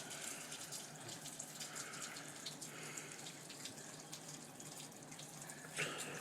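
A sleeping man breathing faintly through his mouth while his nose is held shut to stop his snoring: a few soft, airy breaths, with no snore.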